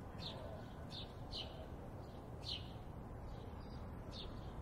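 Birds chirping: about five short, high chirps that drop in pitch, spaced irregularly, over a faint low background rumble.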